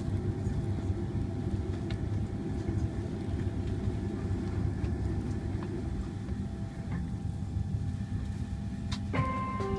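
Steady low rumble of an airliner cabin waiting on the ground before takeoff. About 9 seconds in, a chime of sustained bell-like tones begins.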